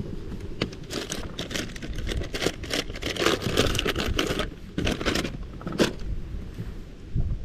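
Rustling, crinkling handling noise: a quick run of short crackles for about four seconds, then a single one shortly after.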